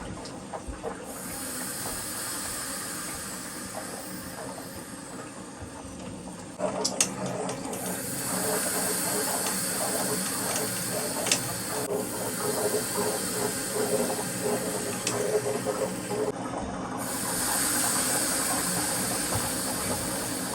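Water rushing and hissing into a new electric water heater tank as it is refilled from the supply line. It grows louder and more gurgling about six seconds in.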